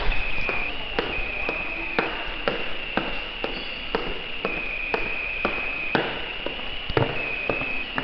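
Footsteps on a ceramic tile floor at a steady walking pace, about two steps a second, over a steady high-pitched tone that shifts slightly up and down in pitch.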